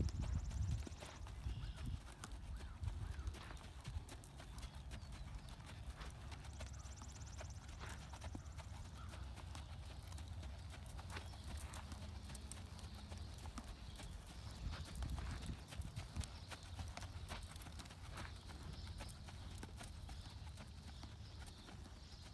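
Hoofbeats of a sorrel American Quarter Horse gelding loping on sand, a run of soft thuds over a steady low rumble.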